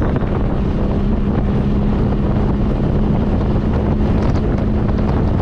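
Open-top Opel roadster driving at steady speed. Its engine holds an even note under loud wind rushing over the microphone in the open cockpit.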